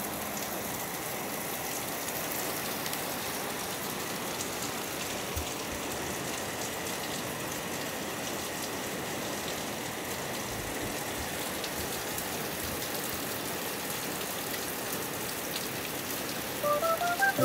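Steady rainfall: an even hiss that holds at one level throughout.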